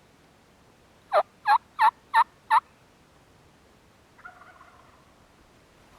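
A series of five loud, sharp turkey yelps, about three a second, each note dropping in pitch. A faint, short turkey-like call follows a little later.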